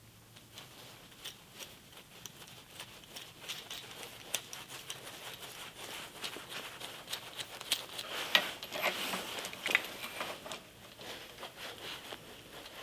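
Irregular light clicks, taps and rustling from hands handling small motorcycle parts, busiest a little past the middle.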